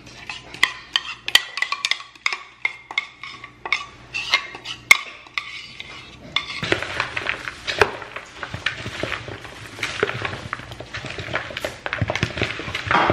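Sharp clinks and taps of utensils against bowls while a creamy dressing is poured over a broccoli salad in a plastic bowl. From about six and a half seconds in, a steadier busy rustle and clatter as the salad is tossed and mixed with a plastic spatula.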